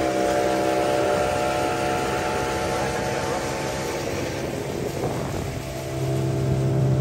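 Small outboard motor pushing an open boat at steady speed, with water rushing from the wake. The engine note thins out briefly about five seconds in, then comes back strongly.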